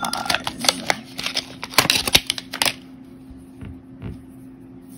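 Plastic packaging crinkling and crackling as a pair of pointed tweezers is pulled out of its sleeve: a quick run of crackles for about two and a half seconds, then it goes quiet apart from a faint low hum.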